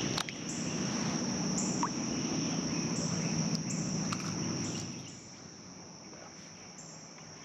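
Insects trilling steadily in a high pitch, rising briefly about once a second, over a low steady hum that fades out about five seconds in.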